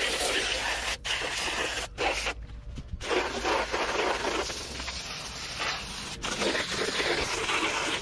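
Garden hose spray nozzle spraying water onto an air-conditioner condenser coil, a steady hiss that cuts off briefly a couple of times early on and for a longer pause between about two and three seconds in before starting again.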